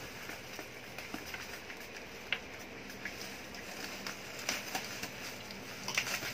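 Plastic bubble-wrap packaging rustling and crinkling as it is pulled open by hand, with scattered small crackles and clicks.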